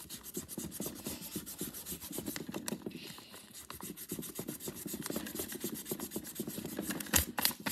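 Eraser rubbing rapidly back and forth on paper, scrubbing out a written name, with a couple of sharper taps near the end.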